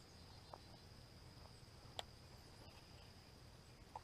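Faint, steady high-pitched chirring of crickets, with a single sharp click about two seconds in.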